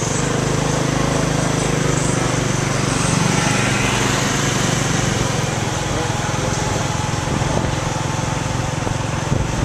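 Small motor scooter's engine running steadily while riding along a street, with heavy wind noise on the microphone.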